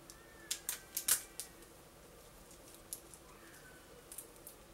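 Small scissors snipping the tags off a wig: about five quick snips in the first second and a half, then a few fainter clicks.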